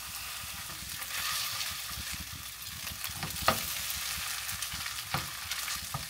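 Cooked rice frying in scallion oil in a pan, sizzling steadily while it is stirred, with a few sharp clacks of the utensil against the pan, the loudest about halfway through.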